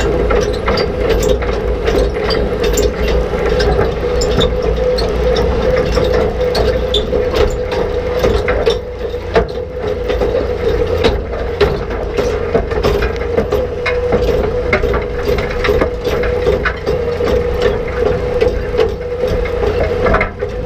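Rock picker at work: its rotating tined reel sweeps rocks and dirt into the steel basket, giving a dense, irregular clatter and knocking of stones and soil against metal over a steady machine hum.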